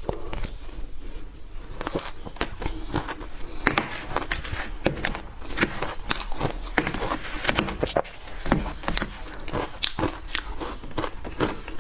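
Ice being bitten and crunched between teeth close to the microphone: an irregular run of sharp cracks and crunches, with a short lull near the start.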